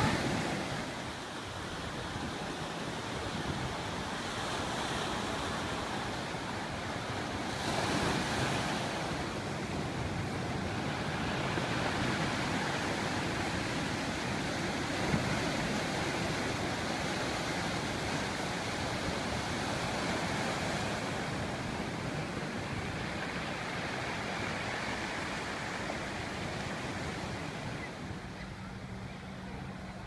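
Ocean surf breaking and washing ashore: a steady rush of water that swells about eight seconds in and eases near the end, where a faint low hum comes in.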